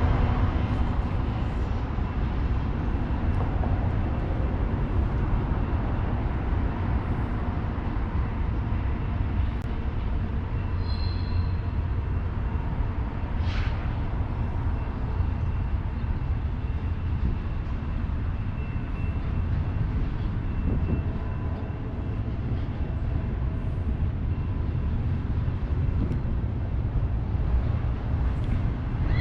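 A train rolling past: the steady rumble of cars on the rails, with no horn sounding.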